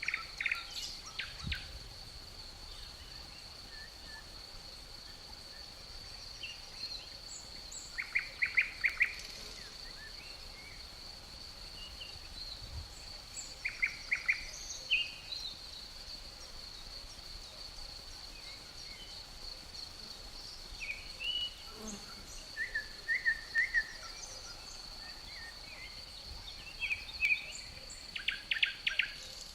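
Woodland ambience: a steady high-pitched insect trill, with songbirds chirping in short bursts several times, around 8–9 s, 14 s, 23 s and near the end.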